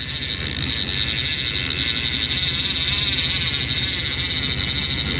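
Conventional trolling reel's clicker ratchet buzzing steadily as line pays out behind the boat, with the boat's engine running low underneath.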